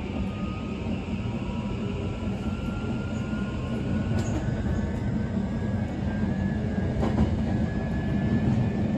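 JR Kyushu Series 821 electric train running, heard inside the passenger car: a steady rumble of wheels on rail under the whine of its Mitsubishi SiC VVVF inverter and traction motors. The whine slowly rises in pitch as the train gathers speed.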